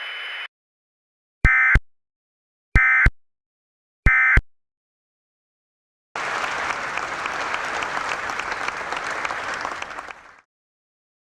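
Three short bursts of EAS end-of-message data tones (the SAME digital burst that closes an alert), each about a third of a second long and a little over a second apart. About two seconds later comes roughly four seconds of applause, which cuts off suddenly.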